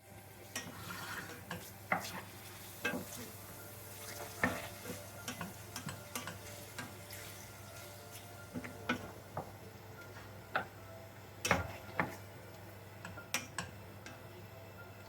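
Irregular clinks and knocks of a utensil against cookware, as in stirring, over a steady low hum.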